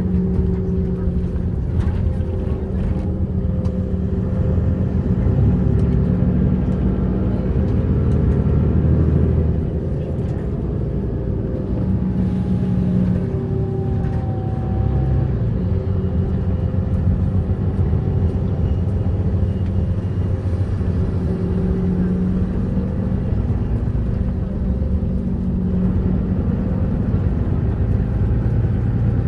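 Apron bus driving, heard from inside the cabin: a steady rumble of engine and road noise, the engine note rising and falling as it moves.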